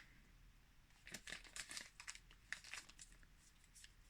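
Faint crinkling of the wrapped soap sponge's packaging as it is handled, in short scattered bursts from about a second in.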